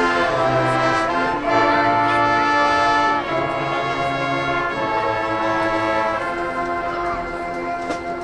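Marching band brass playing slow, sustained chords that change every second or two, trumpets and trombones over a low bass line.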